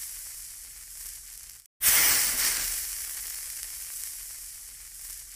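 Hissing sparkle sound effect of an animated logo sting, fading away; it cuts out for an instant under two seconds in, then starts again loud and fades slowly.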